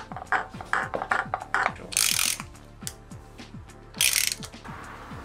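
Hand ratchet wrench clicking as it tightens the intake plenum bolts on an RB25 engine, in a run of short strokes with two longer, louder bursts about two and four seconds in.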